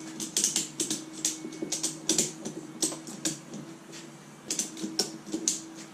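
Ratchet strap being cranked tight around a bundle of wooden posts: irregular runs of sharp clicks from the ratchet handle, with a short pause in the middle.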